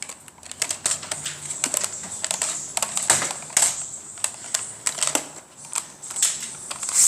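Irregular plastic clicks and rattles from a toy bolt-action dart blaster being handled as its magazine is worked at to get it out.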